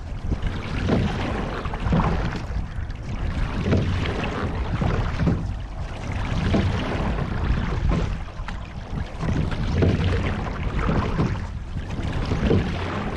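Water rushing past the hull of a rowing shell under way, with the oar strokes giving a regular knock and splash about every second and a half.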